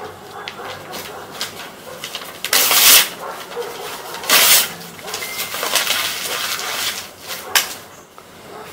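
A sheet of paper torn by hand: two loud rips a little under two seconds apart, with crackly paper rustling between and after them.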